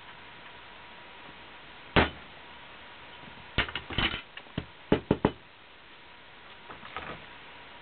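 Hard small objects knocking and clicking on a workbench as parts and tools are handled: one sharp knock about two seconds in, a quick run of clicks and knocks a second later, and a few faint ones near the end. A faint steady high tone runs underneath.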